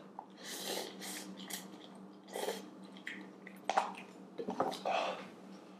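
Close-up slurping and chewing of spicy instant noodles, in several short noisy bursts. Near the end come a few sharper clicks as chopsticks scrape noodles out of the tilted paper cup.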